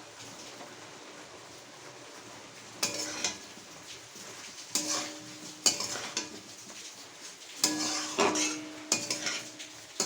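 A spatula scraping and knocking against a cooking pan as spiced minced chicken is stirred and sautéed, with a faint sizzle underneath. Each knock leaves a short ring. The first few seconds hold only the low sizzle, then the stirring strokes come every second or so.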